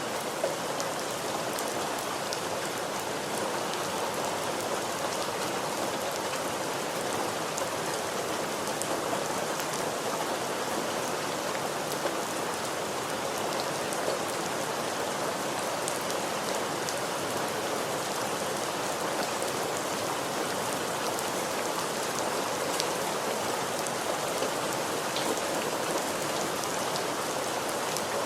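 Steady rain falling and pattering on a surface, a constant even hiss with scattered individual drop ticks.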